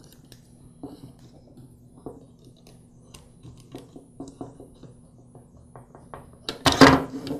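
Small clicks and scrapes of plastic and metal parts as a motor brush holder is worked loose from a plastic drill housing and its wire terminal is pulled off with needle-nose pliers. A louder scraping clatter comes near the end.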